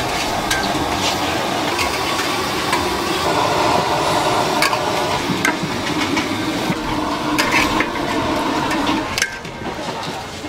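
Metal spatulas scraping and clinking against a large aluminium wok as minced pork is stir-fried, over a steady sizzle. Quieter near the end.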